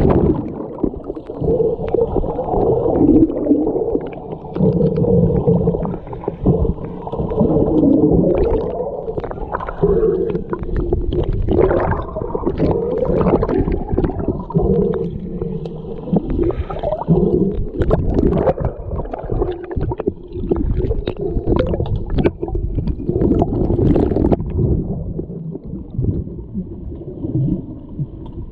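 Muffled, gurgling water sound of an underwater hockey game, as heard underwater, with frequent short clicks and knocks from sticks and puck.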